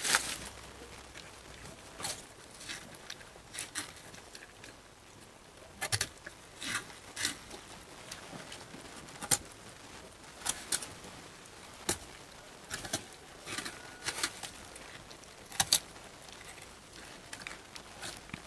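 A goat biting and chewing a piece of raw pumpkin: irregular sharp crunches, roughly one a second.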